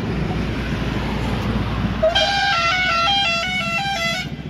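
Road traffic rumbling steadily. About two seconds in, a vehicle's musical horn plays a quick tune of alternating notes for about two seconds, then stops.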